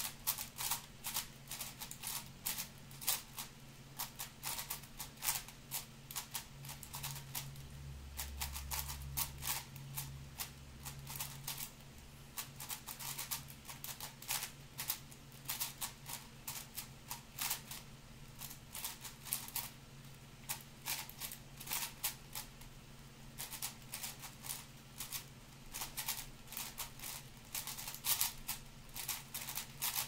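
Shengshou 6x6x6 speed cube being turned fast, a dense, irregular stream of plastic clicks and clacks as the layers snap past one another. This is the edge-pairing stage of a speedsolve.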